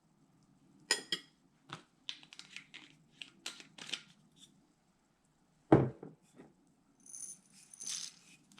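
Kitchen handling sounds while a seasoning is spooned out: a string of small clicks and rustles, with one louder knock about two-thirds of the way through.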